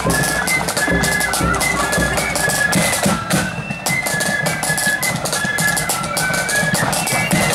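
Blood-and-thunder marching flute band playing a tune: flutes carry a high melody of held notes over rapid side-drum strikes and a bass drum beat.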